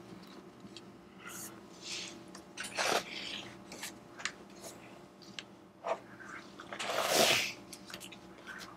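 Pages of a hardcover picture book turning and rustling, with a few soft swishes and taps of the paper and cover. The loudest is a longer swish a little after seven seconds in, as the book is turned over onto its back cover.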